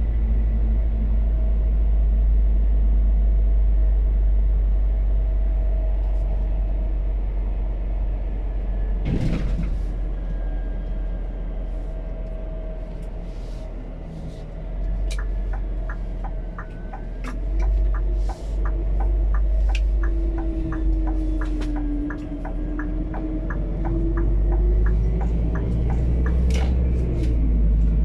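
Biogas Scania P280 truck running, heard from inside the cab as a deep, steady rumble, with a single knock about a third of the way in. From about halfway on, a turn-signal indicator ticks steadily, about two ticks a second.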